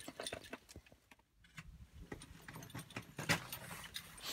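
Metal climbing hardware clinking and knocking at irregular intervals, with one sharp, louder knock a little past three seconds in.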